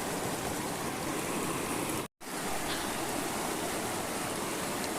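River water rushing steadily, an even noise with no distinct events, cut off by a brief dropout to silence about two seconds in.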